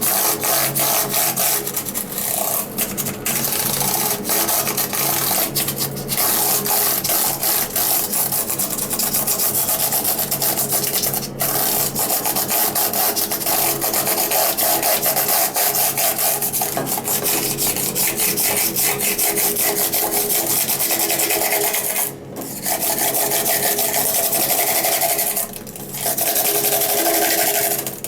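A laptop keyboard being washed in a sink: a continuous rushing, rasping noise that breaks off briefly twice near the end.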